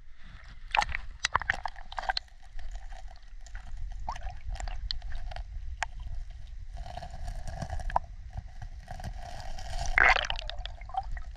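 Muffled gurgling and sloshing of river water, heard with the microphone underwater, with scattered clicks and knocks. A louder burst of sloshing comes about ten seconds in.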